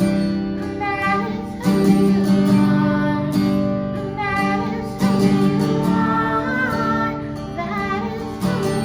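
Worship song played by a small band: acoustic guitar strumming chords with a singer's voice over it.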